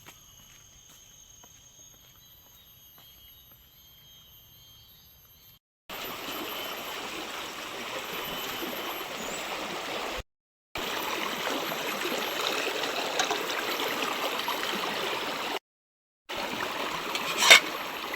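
A flowing stream, a steady rush of water that starts abruptly about six seconds in after a quiet stretch holding only faint steady high-pitched tones. The water sound cuts out to dead silence twice, briefly, and there is a sharp click near the end.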